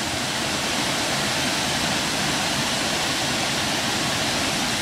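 Steady rushing of water pouring over a small waterfall at a low dam on a creek.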